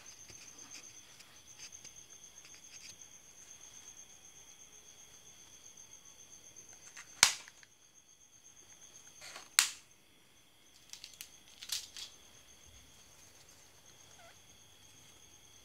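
Crickets trilling steadily in a high, continuous chirr. In the second half, three sharp clicks about two and a half seconds apart stand out as the loudest sounds.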